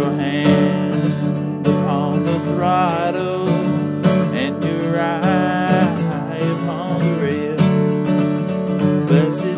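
Steel-string acoustic guitar strummed in a steady rhythm of chords, accompanying a gospel song.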